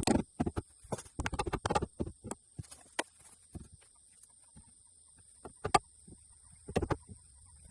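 Irregular light knocks and clicks, the kind made by handling timber and tools: a dense run in the first two seconds, then scattered single knocks, and a short cluster near the end. A faint steady high whine runs underneath.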